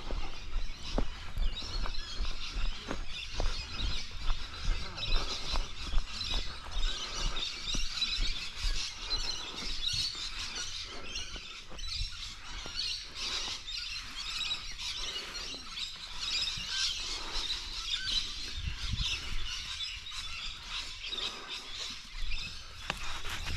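Birds chirping continuously, with scattered short clicks and a low rumble on the microphone.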